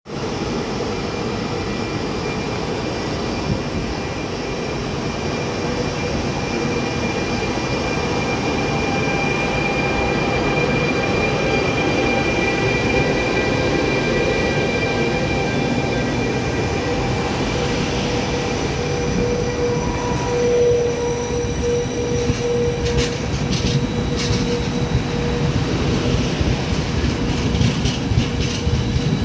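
A train moving through the station: a steady rumble of wheels on the rails with thin, high, steady squealing tones over it.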